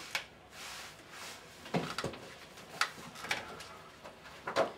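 A few light clicks and knocks of objects being handled on a desk, scattered irregularly over a quiet room background.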